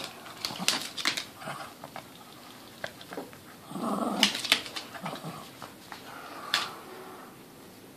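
Boston terrier growling as it tugs and shakes a rope toy, with a longer growl about four seconds in. Sharp clicks and scuffles of claws and paws on a hardwood floor run through it.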